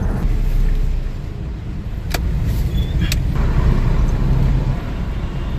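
A car being driven, heard from inside the cabin: a steady low engine and road rumble, with two sharp clicks about two and three seconds in.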